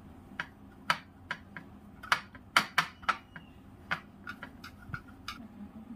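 Irregular light clicks and taps, a dozen or so with the loudest in the middle, from a hand mashing and kneading gulab jamun dough on a plate.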